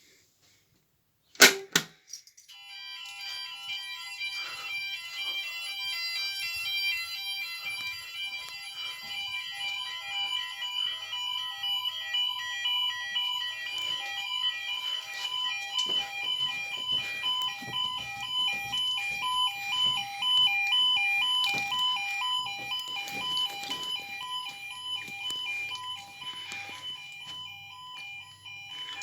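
Fire alarm sounders on a Kentec Syncro system sounding during a test: a two-tone alarm that switches rapidly back and forth between a lower and a higher pitch. It starts about two seconds in, just after a sharp click.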